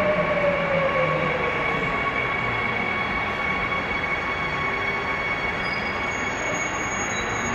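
Seoul Subway Line 2 train pulling into the station and slowing toward a stop: a steady rumble with two high, steady squealing tones, and a whine that falls in pitch over the first two to three seconds as the train slows.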